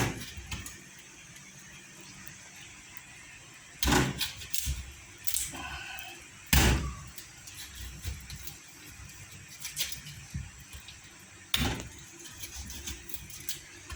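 A knife chopping through chicken pieces on a cutting board: a handful of single heavy chops, spaced irregularly a second or several seconds apart.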